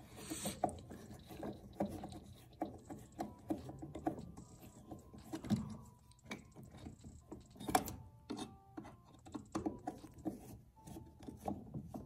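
Screwdriver backing out the screw that holds a furnace's air pressure switch: a run of small irregular metal clicks and scrapes as the blade turns and slips in the screw head.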